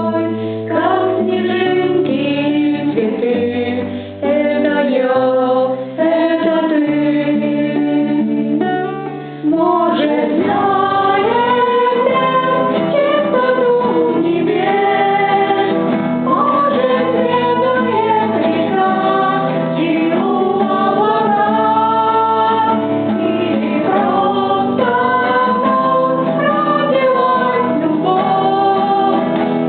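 Music: a song with female singing over a sustained instrumental accompaniment, which grows fuller about ten seconds in.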